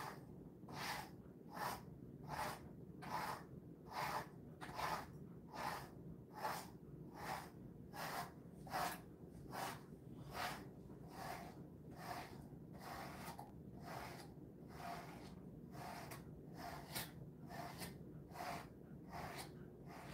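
Dog brush sweeping through a Jindo dog's coat in steady, evenly spaced strokes, a little more than one a second.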